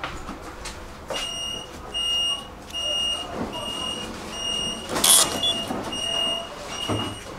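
Tram door warning beeper sounding a series of short, high beeps, a little more than one a second. One loud, short rush of noise breaks in about five seconds in.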